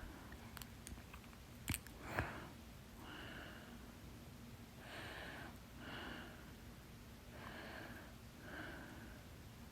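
A woman with soda-gas hiccups gives a small, sharp hiccup about two seconds in, then breathes slowly and audibly, about five soft breaths.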